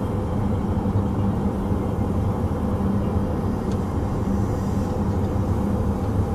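Steady road and tyre noise heard from inside the cabin of a Tesla Model S cruising at highway speed. It is an even low rumble with no engine note, since the car is electric.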